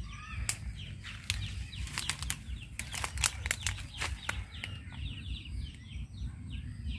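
Footsteps crunching through dry leaf litter and brittle twigs, with many sharp snaps and crackles as brush is pushed aside.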